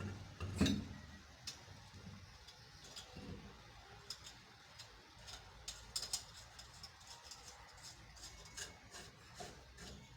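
Scattered light metallic clicks and taps of a wheel and its nuts being fitted back onto a car's hub by hand during a tyre change, with a louder thump about half a second in.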